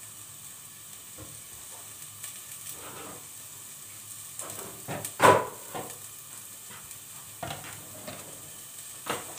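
Minced meat sizzling as it fries in a steel pot on a gas burner, a low steady frying sound. A loud knock comes about five seconds in, with a few lighter clicks around it.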